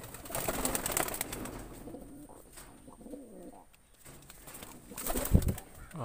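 Domestic pigeons cooing faintly, with rustling and clicks from hands handling the nest box. A sharp knock about five seconds in is the loudest sound.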